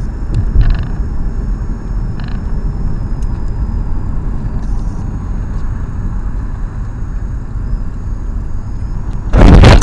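Steady low rumble of road and engine noise from a car driving on a freeway, as picked up by a dashcam inside the cabin. Near the end a sudden, loud burst of noise lasts about half a second.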